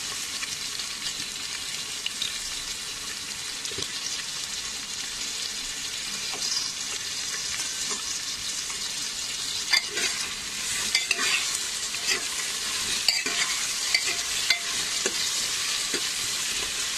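Sliced onions and potato cubes sizzling in hot oil in a pressure cooker. From about ten seconds in, a spoon stirs them, clicking and scraping against the pot.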